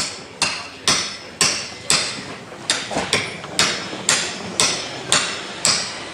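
A steady run of sharp knocks or strikes, about two a second, each with a short ringing tail.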